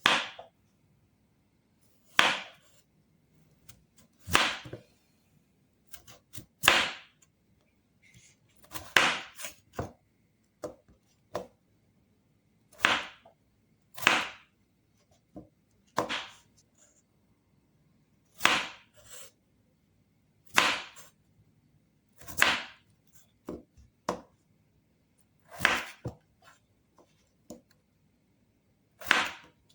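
A kitchen knife cutting raw peeled potatoes into small pieces. Each cut lands as a single sharp chop, about one every two seconds, with a few lighter taps in between.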